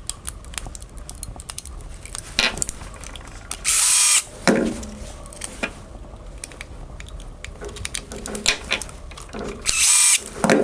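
Cordless drill driver running in two short bursts, about four seconds in and again near the end, driving the gearhead screws back into an angle grinder's housing. Small clicks and knocks of handling the screws and tool come between the bursts.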